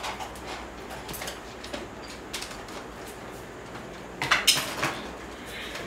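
Stylus tapping and scraping on an iPad's glass screen while a word is handwritten: a string of light clicks, with a louder burst of clatter a little past four seconds in.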